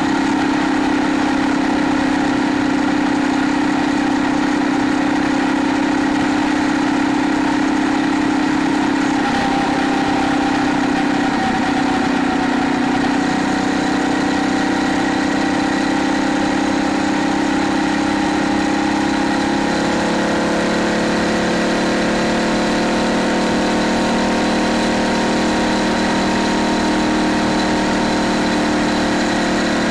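Small four-stroke gas engine of a 2024 Phatmoto Rover motorized bicycle running steadily while riding at cruising speed; its note eases slightly lower about two-thirds of the way through.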